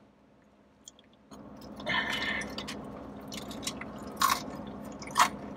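A person chewing a mouthful of flaky-crusted buffalo chicken crunch roll, starting about a second in, with soft wet mouth sounds and a few sharp clicks.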